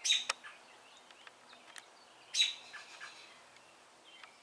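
Small birds chirping outdoors: two short, sharp, high chirps, one at the start and one about two seconds later, with fainter chirps between.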